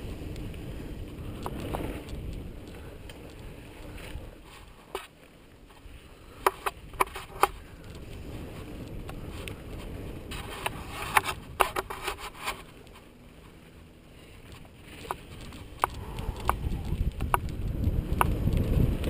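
Mountain bike riding fast down a dirt singletrack: a steady low rumble of tyres on the trail and wind, broken by bursts of sharp rattling clicks as the bike goes over bumps, about a third of the way in, again past the middle and near the end.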